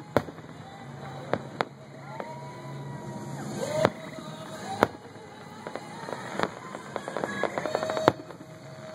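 Aerial fireworks shells bursting: about seven sharp bangs spread irregularly over the nine seconds, with a quick run of crackling small reports just before the last bang.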